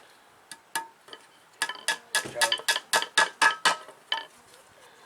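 Sharp metal-on-metal taps with a short ring: a couple of single clicks, then a quick run of about four taps a second for two seconds, and one more tap near the end.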